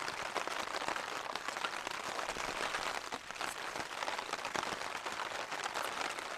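Rain pattering steadily on tent fabric during a wind and rain storm, heard from inside the tent.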